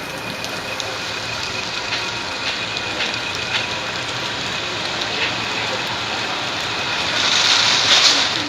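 Steady hiss of rain with scattered faint drop ticks, swelling louder for about a second near the end.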